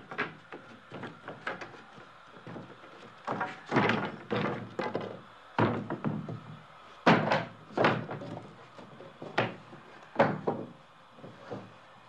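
Lumber being stacked by hand: irregular wooden thunks and clatter as boards are set down on a pile, a loud knock every second or so with lighter knocks between.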